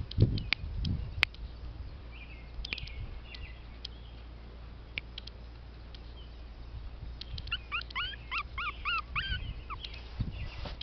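Morkie puppy (Maltese–Yorkshire terrier cross) whimpering: a quick run of about eight short, high, rising whines about three quarters of the way through. There are low thumps in the first second and a few light clicks.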